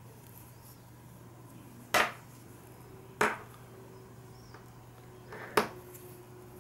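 Metal knitting needles clicking against each other as stitches are worked across a row: three sharp clicks, about two, three and five and a half seconds in, with a few fainter ticks between.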